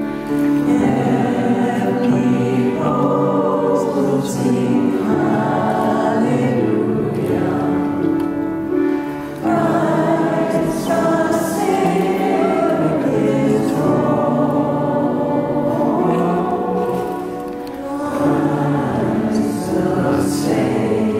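A woman singing a Christmas carol with sustained, melodic phrases, with short breaths between lines about nine seconds in and again about seventeen seconds in.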